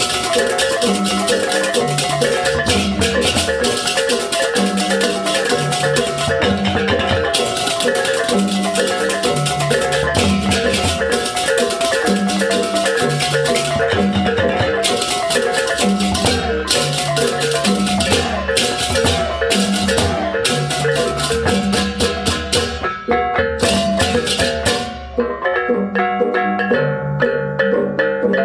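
Balinese baleganjur gamelan playing: kendang drums, reyong kettle gongs and rapid interlocking ceng-ceng hand-cymbal crashes over a repeating low pattern. About three seconds before the end, the cymbals thin out while the kettle gongs and drums carry on.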